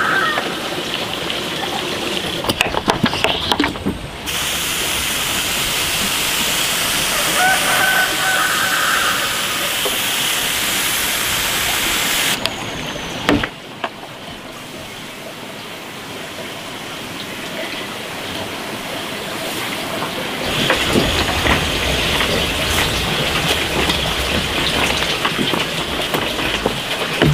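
Hand-pump garden sprayer hissing as it sprays water onto plants, in long stretches several seconds each with a quieter gap in between.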